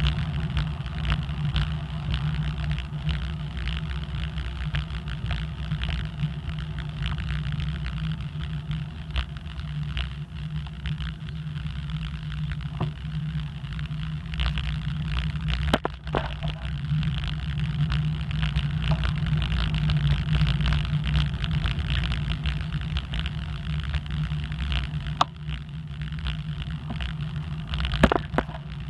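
Steady low rumble of wind buffeting the microphone, with tyre and road noise from a moving bicycle. A few sharp knocks from bumps or handlebar rattles come in the middle and near the end.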